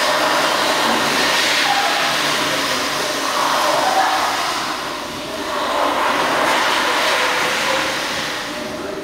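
A train running, a steady noisy rumble and hiss, easing off briefly around the middle and again near the end.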